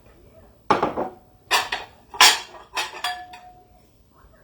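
Kitchen pots, pans and utensils clattering: about five sharp clanks in quick succession, one leaving a short metallic ring.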